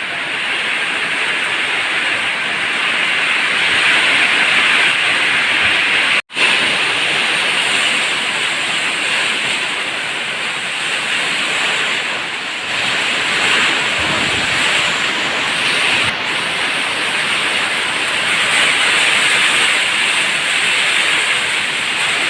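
Heavy rain pouring down in a steady hiss, with a momentary cut-out about six seconds in.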